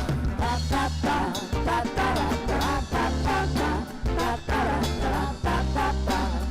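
Band music with a steady beat: an instrumental stretch between sung lines of a pop song.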